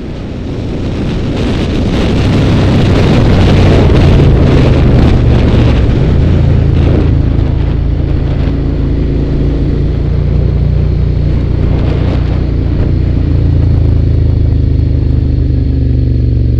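Motorcycle under way: a steady low engine drone under heavy wind noise on the microphone. The wind rush is loudest in the first half and eases after about eight seconds.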